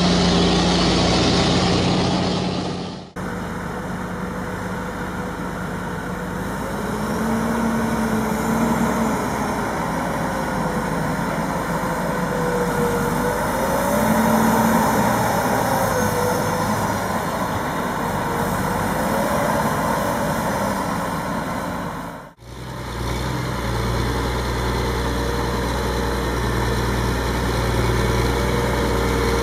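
Heavy diesel engines of harvest machinery running, heard as three stretches cut apart abruptly about three seconds in and about two-thirds of the way through; in the middle stretch the engine pitch rises and falls a little as the load changes.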